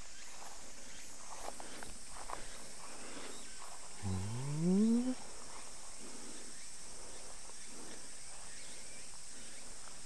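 Steady high-pitched insect chorus. About four seconds in, a single low hum-like vocal sound rises in pitch for about a second and is the loudest thing heard.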